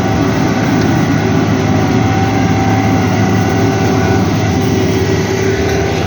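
A vehicle's engine running steadily and loud, close by, with a low rumble and a steady hum.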